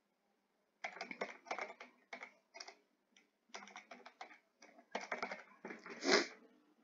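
Typing on a computer keyboard: irregular runs of key clicks that begin about a second in, with one louder key press near the end.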